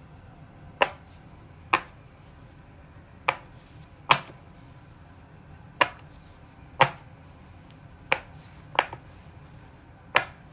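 Silicone Pop It fidget toy bubbles being pressed through one at a time: about nine short sharp pops, unevenly spaced with pauses between.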